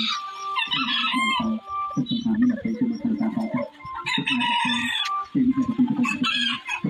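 Roosters crowing, several crows in a row with some clucking between.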